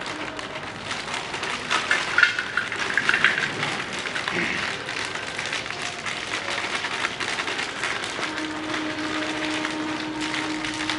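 Plastic pouch of softy ice-cream premix powder crinkling and rustling as it is shaken out into a steel pot, with crackly bursts loudest about two to three and a half seconds in. A faint steady hum comes in about eight seconds in.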